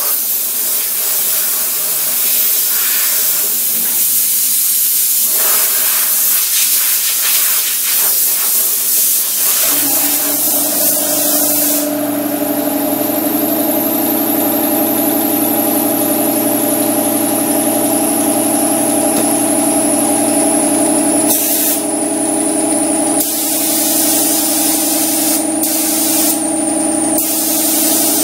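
Spray gun hissing steadily as primer is sprayed. About ten seconds in, a motor-driven air compressor starts and runs with a steady hum, and the gun's hiss comes in short bursts over it.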